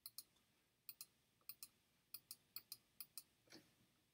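About a dozen faint, sharp clicks, mostly in quick pairs about a sixth of a second apart, coming at irregular intervals.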